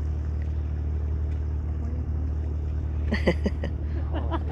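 A low, steady engine hum at a constant speed, with a brief voice about three seconds in.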